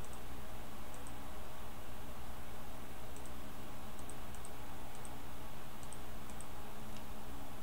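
Faint, scattered clicks of someone working a computer, a dozen or so short clicks at irregular intervals, over a steady low electrical hum and hiss.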